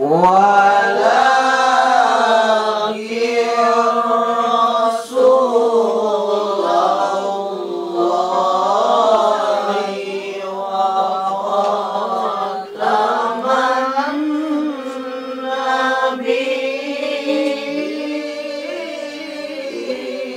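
Qur'an recitation chanted melodically by male voice, with long held notes that waver and slide between pitches, breaking only for short breaths.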